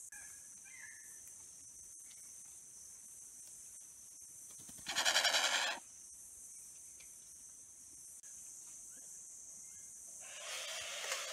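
Kagu giving a loud rasping hiss of about a second, about five seconds in, and a weaker one near the end: a warning at an intruder on its territory. A steady high insect drone runs underneath.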